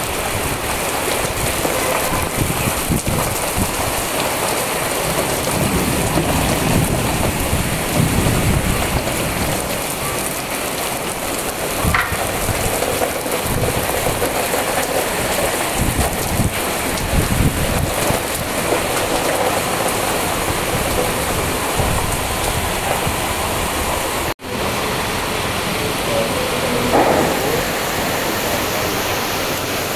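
Steady rain falling and pattering on the building and the wet ground, with irregular low rumbles now and then.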